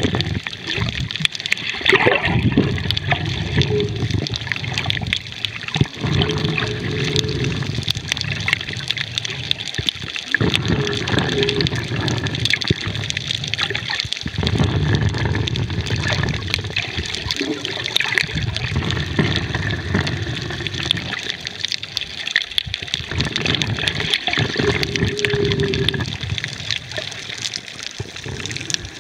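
Water sloshing and gurgling around an underwater camera, muffled, in uneven surges a few seconds long.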